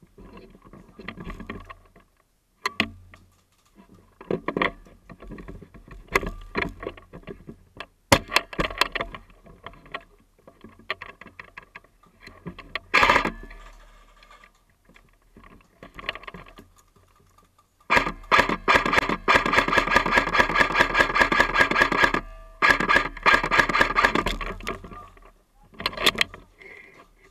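Airsoft guns firing: scattered shots and short bursts, then long strings of rapid automatic fire from about eighteen seconds in, broken by a brief pause.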